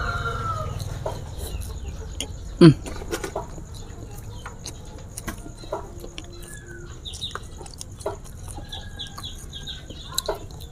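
Chickens clucking in the background, with one loud, sharp call about two and a half seconds in that drops steeply in pitch. Faint clicks of chewing on crisp fried round tofu run underneath.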